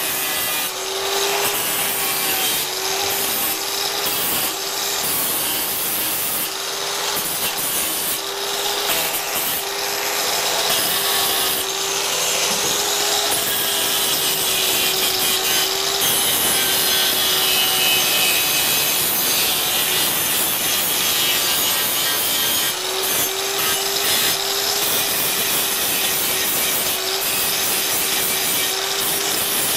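Electric angle grinder running, its disc grinding over a welded steel sculpture made from old hand tools. A steady motor whine wavers slightly under a harsh grinding hiss, and the whine fades for a few seconds past the middle.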